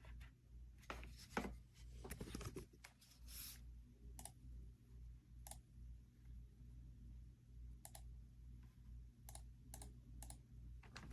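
Faint computer keyboard clicks: a quick run of keystrokes in the first few seconds, then single clicks every second or so, over a low steady hum.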